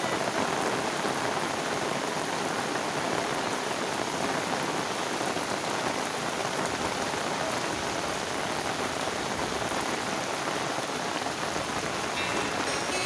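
Heavy rain falling steadily, a dense even hiss of drops without letup.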